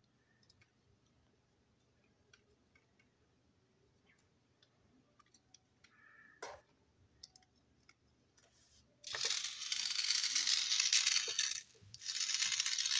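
Small plastic parts of a toy train clicking faintly on a table, then the engine's plastic chassis and gearbox unit rattling loudly in the hands in two bursts, the first about two and a half seconds long and the second shorter.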